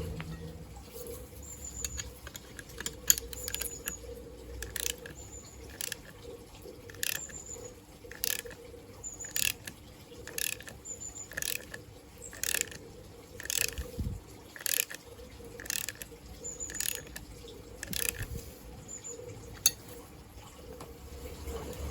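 Ratchet wrench clicking in short strokes, about one a second, as it turns a threaded bar that draws a new bush into its housing.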